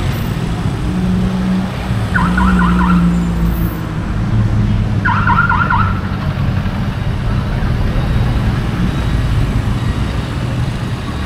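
Street traffic rumble with vehicle engines running, broken by two short bursts of rapid, repeated chirps about two and five seconds in.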